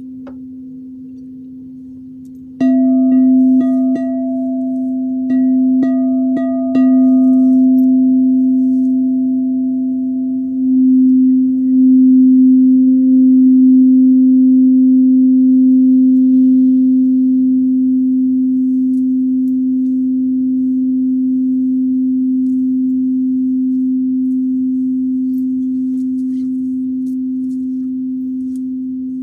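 A singing bowl ringing with one steady low hum. About two and a half seconds in it is struck, then tapped several more times over the next few seconds. The hum swells, wavers briefly, and slowly fades.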